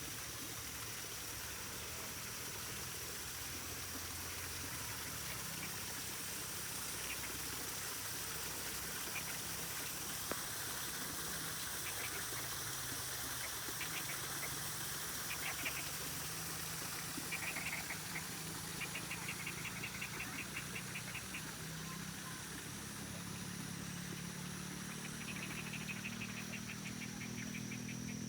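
Forest ambience: a steady high insect drone over an even hiss, with short trains of rapid clicking animal calls about two-thirds of the way through and again near the end.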